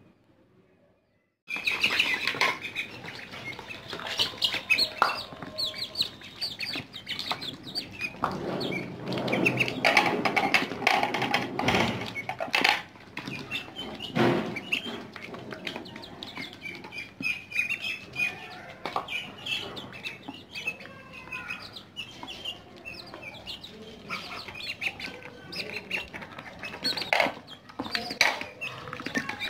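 Young chickens and ducks peeping and chirping as they peck at chopped tomatoes in a metal tray, with many quick clicks of beaks on the metal and some wing flapping. It starts about a second and a half in.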